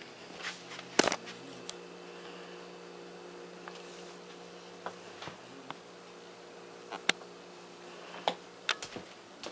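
A steady low mechanical hum with scattered sharp clicks and knocks, the loudest about a second in and a cluster near the end.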